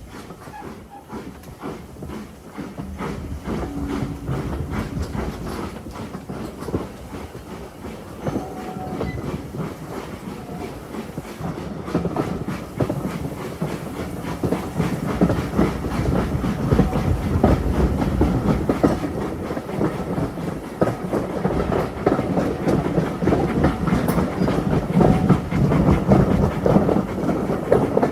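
Steam railway train running along the track, its wheels clicking over the rail joints above a steady rumble that grows louder.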